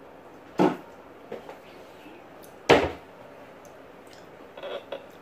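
Two loud knocks about two seconds apart, with smaller knocks between and a few faint ones near the end, as a person pulls up a chair and sits down at a table.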